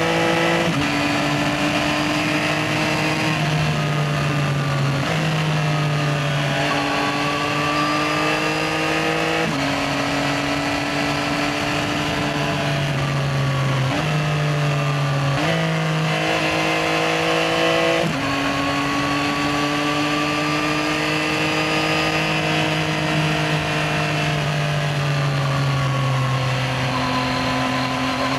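Yamaha XSR900's three-cylinder engine pulling through the gears on the road. Its pitch climbs in each gear and drops sharply at each shift, several times, with stretches where it eases off and glides down.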